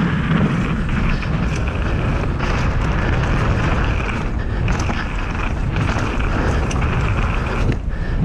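Wind buffeting the helmet camera's microphone over a steady rumble of mountain-bike tyres on a dirt trail as the bike is ridden.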